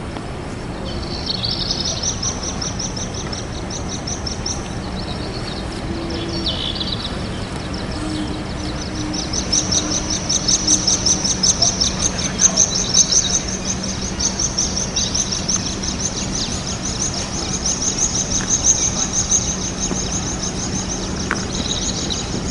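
Birds chirping in fast, evenly repeated high trills, loudest about halfway through, over a steady low city hum.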